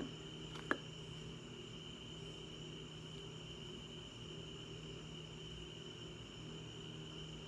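Quiet room background: a steady low hum with a faint, high-pitched steady whine, and one small click just under a second in.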